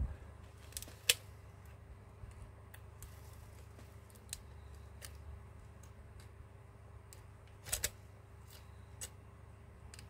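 Scattered sharp clicks and taps of a smartphone's housing and parts being handled and worked at by hand with a small tool during a repair. The loudest click comes about a second in and a quick pair near the end, over a faint steady low hum.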